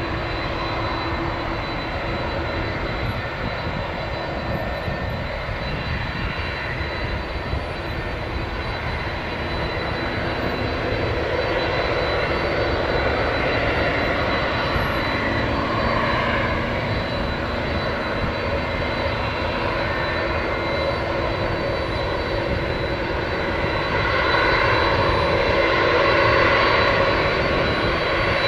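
Boeing 767-300 jet engines running at low taxi power as the airliner moves along the ground: a steady rush with a thin high whine, growing a little louder in the last few seconds.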